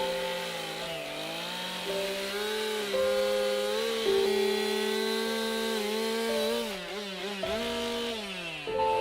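Petrol carving chainsaw cutting into wood, its engine note held high and dipping briefly several times as the chain bogs in the cut and picks back up.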